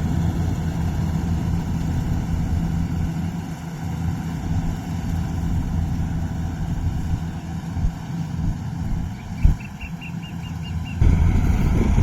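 Yanmar rice combine harvester's diesel engine running steadily with a low hum. A short run of quick high beeps sounds about nine seconds in.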